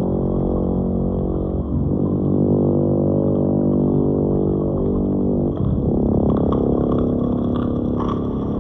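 Dark ambient synthesizer drone: low, sustained chords that shift to new notes about two seconds in and again after five seconds, with faint clicks near the end.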